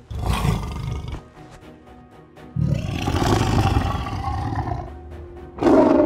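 Animated tiger roaring over background music: a short growl at the start, then a long roar from about two and a half seconds in that lasts some two seconds, and a short loud call just before the end.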